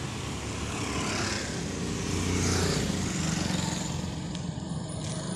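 A motor vehicle engine running steadily, with a hiss of outdoor noise over it.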